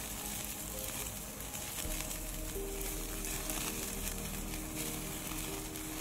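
Steaks and sausages sizzling on a wire grill over an open wood fire, a steady hiss with faint crackles. Soft background music with held notes plays underneath.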